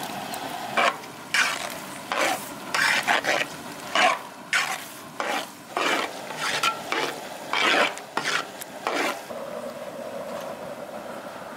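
A spatula stirring and scraping thick masala with chopped capsicum around a large metal cooking pot, in a run of quick scraping strokes over a low frying sizzle. The strokes stop about nine seconds in, leaving the sizzle.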